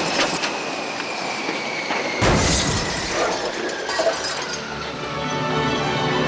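Glass and metal debris shattering and clattering in several sharp crashes, the loudest about two seconds in, over a whine that falls steadily in pitch. Music comes in near the end.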